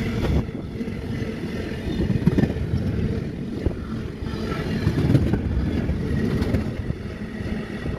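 Freight train of tank wagons passing at speed: a steady low rumble of wheels on rails.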